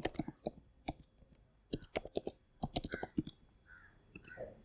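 Typing on a computer keyboard: quick runs of keystrokes separated by short pauses, as an email address is typed in.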